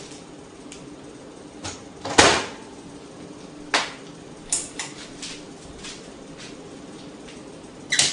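Microwave oven door shut with a loud clack about two seconds in, followed by a sharp click and a run of lighter clicks, then two more sharp clicks near the end.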